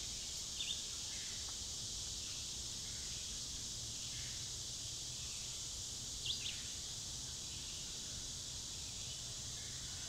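Woodland ambience: a steady high-pitched insect hum, with short bird chirps about half a second in and again about six seconds in.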